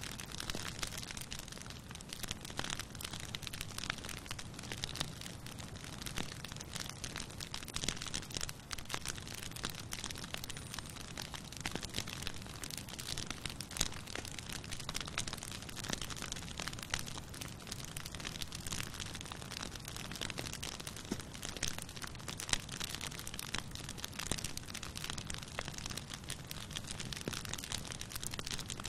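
Campfire burning with dense, continuous crackling, a few louder pops standing out, and a steady low rumble underneath.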